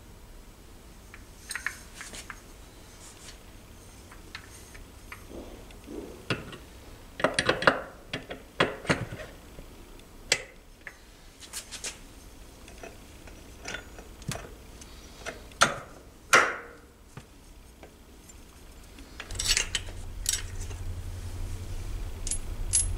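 Irregular metal clinks and taps as steel gears and a washer/shim are handled and fitted onto the gearbox shafts of a Tomos A35 moped engine, with a few sharper knocks among them. A low hum comes in near the end.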